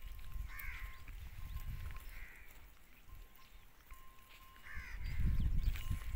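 Three short animal calls, crow caws or goat bleats, over a low rumbling noise that is loudest near the end.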